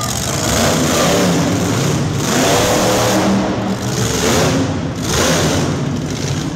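Monster truck engines, supercharged V8s, revving hard in repeated surges about every second or so as the trucks drive on the dirt arena floor.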